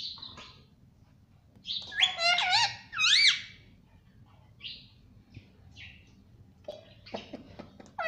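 Indian ringneck parakeet calling: a quick run of loud, arching high calls about two seconds in, followed by a few shorter, fainter calls.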